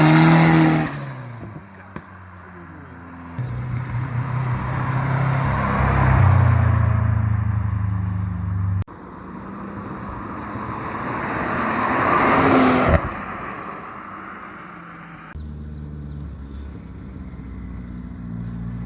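Cars driving past one after another, each engine rising to a loud revving pass and then falling away, over a low engine rumble. The sound changes abruptly about nine seconds in and again near fifteen seconds.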